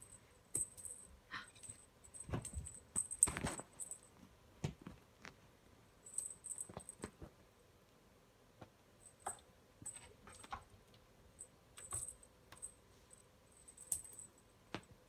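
A cat scrambling and batting at a wand toy in a carpeted cat tree: irregular light taps, scratches and rustles of paws, claws and string on the carpet and sisal posts, busiest with a few louder knocks a couple of seconds in, then sparse taps with a short lull.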